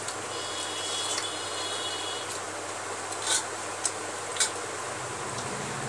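Eating by hand from a stainless steel plate: fingers mixing and scooping rice and vegetables against the plate, with three short sharp clicks in the middle, over a steady background hiss.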